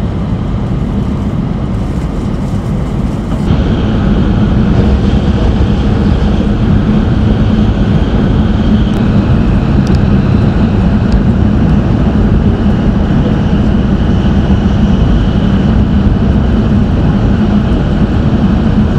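Steady rushing noise inside the cabin of a Tohoku Shinkansen bullet train running at high speed, with a low hum underneath. It grows louder and hissier about three and a half seconds in, then holds steady.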